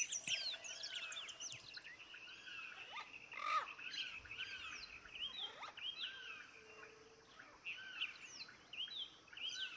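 A chorus of small birds chirping: many short, arching notes overlap throughout, with a few higher whistles sliding down.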